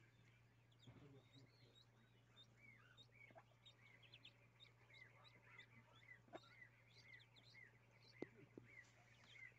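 A brood of mallard ducklings peeping: many short, high peeps repeating and overlapping, faint, over a steady low hum, with a couple of soft knocks near the end.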